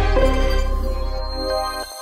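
Background music: sustained chords over a deep bass, the bass cutting off near the end as the music fades away.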